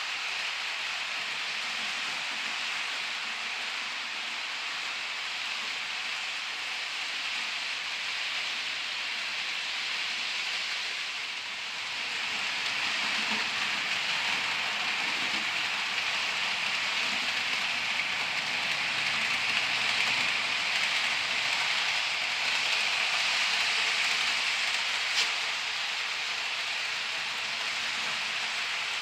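HO scale model freight train rolling along the layout track: a steady rushing hiss of small metal wheels on the rails and the locomotive's little motor. It gets a little louder from about twelve seconds in, with one sharp click near the end.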